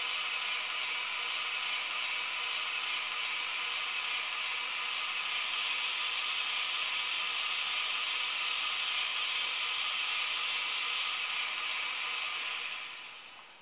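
Sound decoder in a Jouef CC 70002 model locomotive playing the locomotive's cooling-fan sound through the model's small speaker: a steady whirring hiss with a faint rapid flutter, fading out near the end.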